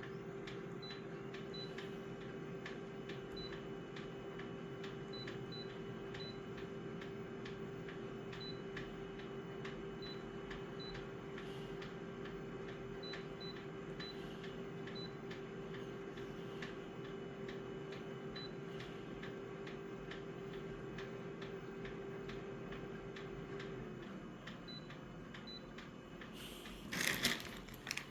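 Photocopier running, with a steady hum, regular ticking and faint high beeps now and then. The hum stops about 24 seconds in, and a short loud clatter follows near the end.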